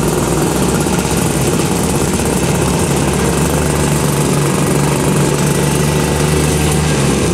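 A 1963 Pengor Penguin amphibious ATV's engine running steadily as the machine moves off under its own power.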